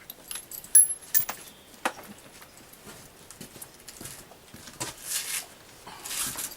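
Clicks, knocks and light metal rattles of an AR-15 rifle and its gear being handled, the loudest a sharp click about a second in, with two short rustling swishes near the end.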